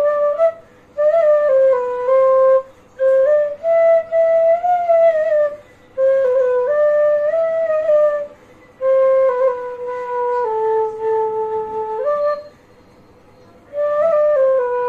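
Bansuri, a bamboo transverse flute, playing a slow melody in short phrases of mostly held notes that step up and down in pitch. Brief breaths separate the phrases, with a longer pause about twelve seconds in before a last phrase.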